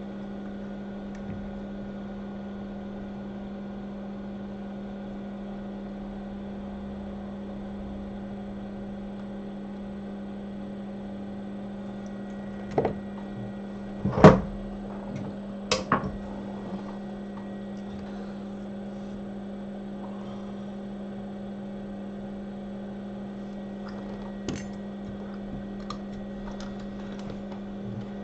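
Steady electrical hum from running workbench equipment, with a few sharp taps and clicks of small tools, the loudest about halfway through and a couple more near the end.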